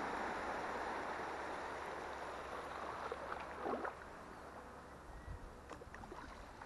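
Shallow saltwater sloshing and swishing around a wader's legs, fading over the first few seconds. There are a couple of small splashes near the middle and a few faint clicks near the end.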